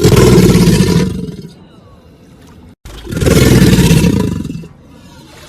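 Crocodilian making two loud, rough growling calls, each about a second and a half long, with a cut between them.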